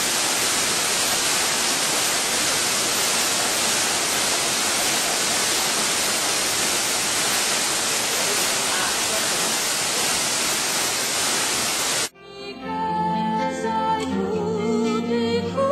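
Steady rushing roar of a waterfall dropping about 20 metres into a rocky pool, heard close up. It cuts off abruptly about twelve seconds in and soft music takes over.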